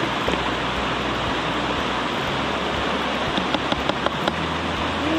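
A fast mountain creek rushing over rocks, a steady water noise, with a few faint small clicks in the second half.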